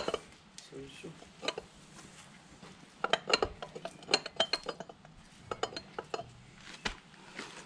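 Sharp metallic clicks and clinks from a clutch release fork and its small retaining tab being worked loose inside a transmission's aluminium bell housing. They come in quick clusters, the densest about three to four seconds in, with more near the end.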